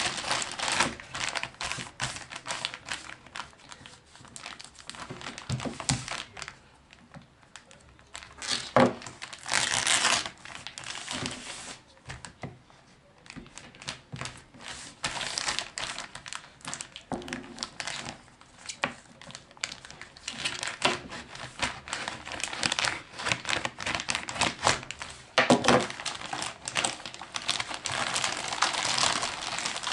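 Plastic postal envelope and parcel packaging being opened by hand: irregular crinkling and rustling in uneven bursts, with some tearing as a strip is torn off, and a couple of quieter pauses.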